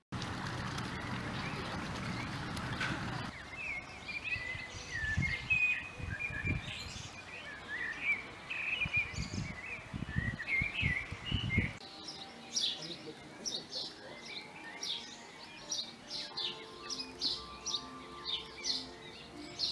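Songbirds chirping and singing outdoors. A few seconds of even background noise come first. After a cut, a denser run of quick high chirps follows, with faint music underneath.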